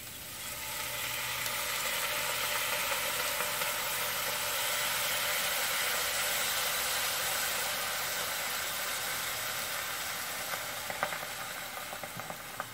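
Fresh water poured into a hot cast-iron Dutch oven of seared vegetables, hissing and sizzling loudly as it turns to steam: deglazing the pot. The hiss builds about half a second in and eases off toward the end.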